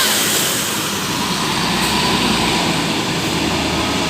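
Large bus engine running close by, a steady low hum under an even rushing noise.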